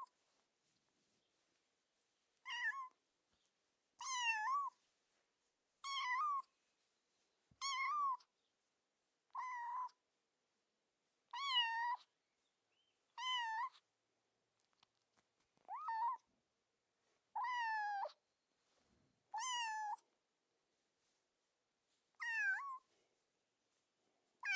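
A cat meowing repeatedly: about eleven short, high meows, each rising and then falling in pitch, spaced roughly two seconds apart with silence between them.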